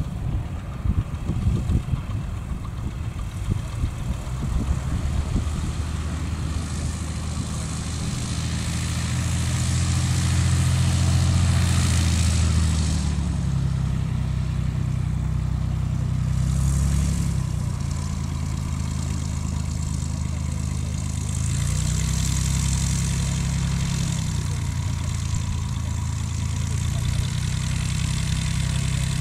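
Light aircraft's piston engine and propeller running steadily at low taxiing power, the engine speed dipping and picking up again a couple of times. Gusts of wind buffet the microphone at the start.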